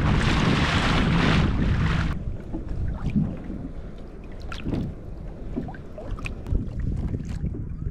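Wind buffeting the microphone, cutting off suddenly about two seconds in; then a quieter low rumble of the kayak on the water with scattered light knocks and clicks.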